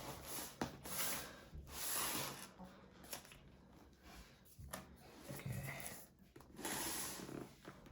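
Cardboard box and its packaging being handled and moved about, with rustling and a few soft knocks.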